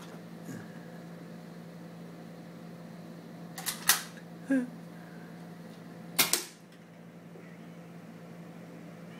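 Sharp plastic clacks of a Nerf dart blaster being handled and fired: a quick double clack, a small squeak half a second later, then a louder clack about two seconds after that. A steady low hum runs underneath.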